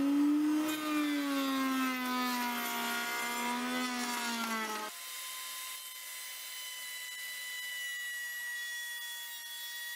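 Benchtop router table with its cutter milling a profile into a wooden block: a motor whine that sags and wavers in pitch under the load of the cut. About five seconds in it cuts abruptly to a steadier, higher whine of the router running as a board is fed past the fence.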